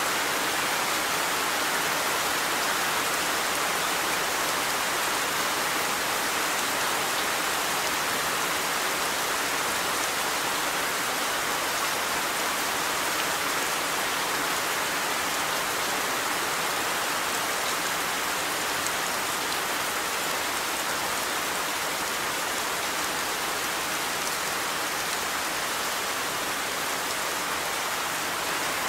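Steady rain falling, an even hiss of drops hitting the ground, with no let-up or change in strength.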